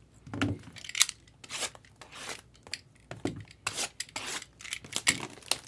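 Hands handling a cardboard trading-card hobby box: irregular scraping, rustling and sharp clicks of cardboard and wrapping sliding and knocking.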